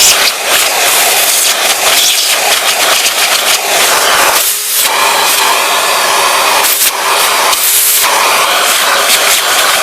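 Vacuum cleaner running with a loud steady rush of air over a faint hum, the airflow dipping briefly a few times.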